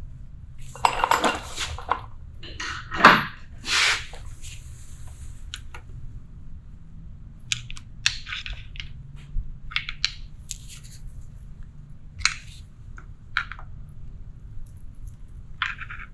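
Metal tools and engine parts clinking and scraping as the timing chain and gears are worked off a Jeep 4.0L engine. A cluster of louder clatter comes in the first few seconds, then scattered light clinks.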